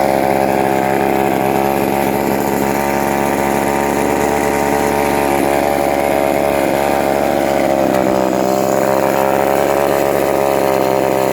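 1976 Remington Sportsman 2.1 34.4cc two-stroke chainsaw running steadily at an even speed.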